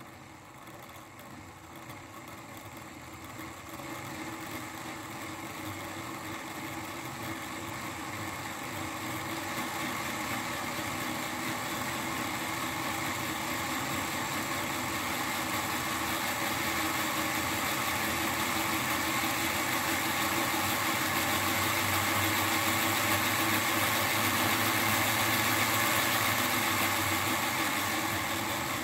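Märklin H0 BR 247 Vectron model locomotive running on a rolling-road test stand, its motor and the rollers whirring steadily. The whir grows louder throughout as the locomotive is stepped up through its speed steps during a speed-curve measurement, running in reverse.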